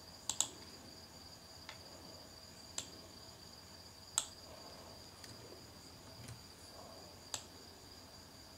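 Computer mouse clicks: a quick double click near the start, then single clicks every second or so while the text is selected and moved in Photoshop. Behind them runs a faint, steady, high-pitched hum.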